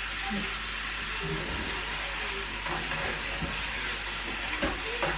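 Steady sizzling hiss of food frying in hot oil, with a few light taps.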